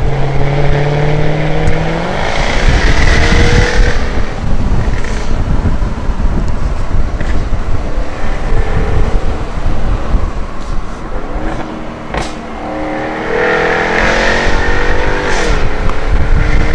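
Jaguar F-Type Project 7's supercharged V8 heard from the cockpit on the move, with steady engine and road rumble. The engine note rises under acceleration about two seconds in and again near the end, with a brief drop and climb like a gearshift late on.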